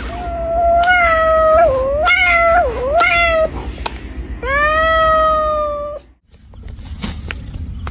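A cat yowling in long, drawn-out wavering calls, several in a row with dips in pitch, and a last long call that cuts off about six seconds in. Quieter scuffing and clicks follow.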